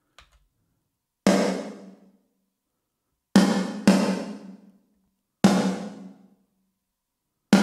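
Snare drum track played back soloed through a chamber reverb turned up full: five single hits, two of them close together in the middle, each ringing out and fading over about a second.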